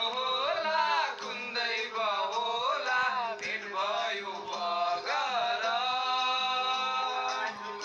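A man singing solo into a handheld microphone, drawing out long wavering notes, over a steady low tone.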